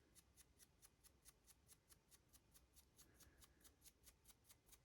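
Near silence, with a faint, rapid, evenly spaced ticking of about five ticks a second.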